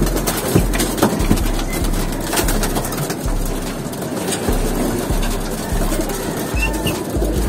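Racing pigeons cooing in a loft, many birds at once, with a low rumble coming and going and a few sharp clicks.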